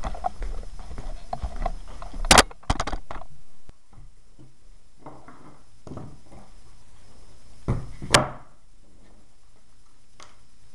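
Handling noise with small rustles and clicks, and two loud sharp knocks, one about two seconds in and one about eight seconds in, as a skateboard deck and stickers are handled.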